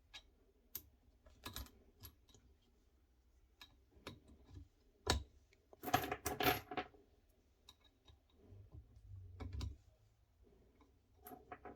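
Metal deselection pins of a Renz AP360 punch tool being fitted back into the tool by hand: scattered light metallic clicks and clinks, busiest about six seconds in.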